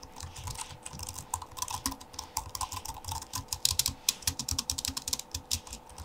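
Typing on a Jelly Comb ultra-slim wireless keyboard: a quick, irregular run of light key clicks, several a second, clicky but not too clicky.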